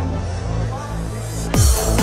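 Electronic dance music with heavy bass: the drum beat drops out into a held bass note under a rising hiss, and a hard hit about one and a half seconds in brings the kick-drum beat back.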